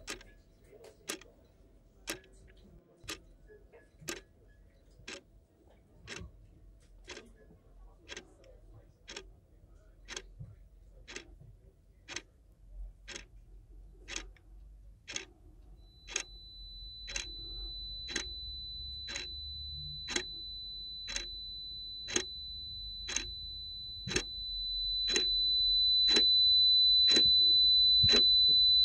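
Clock ticking about once a second. About halfway through a low rumble and a steady high-pitched whine join in, and the whine swells to the loudest sound near the end.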